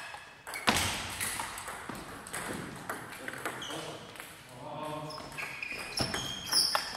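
Table tennis balls clicking and pinging off bats and tabletops in irregular rallies, with one sharp knock about a second in. Voices talk in the background.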